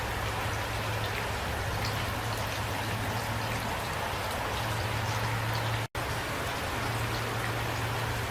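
Steady rain, with individual drops ticking through a constant wash. About six seconds in the sound cuts out completely for a split second, then resumes.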